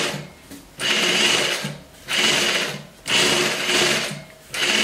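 Juki DDL-8700 industrial lockstitch sewing machine with a gathering foot stitching sheer lace, running in spurts of about a second with brief pauses between as it gathers the fabric.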